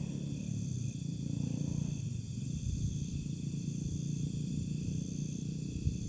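Night chorus of crickets and other insects: a steady high trilling, with one chirp repeating about once a second. Under it runs a low rumble, with a short thump near the end.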